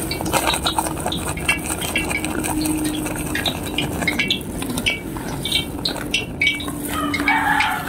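A plastic sack of flour crinkling and rustling in gloved hands as flour is poured into a ceramic bowl, with many quick irregular clicks and light clinks.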